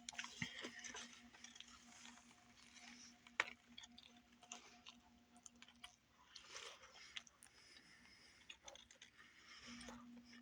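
Faint chewing and mouth noises of a person eating a sandwich, with scattered small clicks over a faint steady hum.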